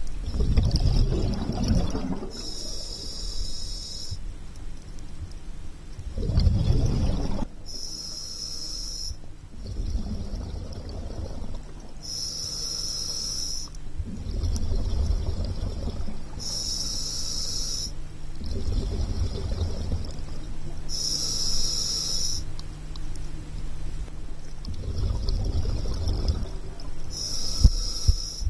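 Scuba diver breathing through a regulator underwater: a rumbling burst of exhaled bubbles alternating with a hissing inhale, one breath about every four to five seconds, over a steady low hum.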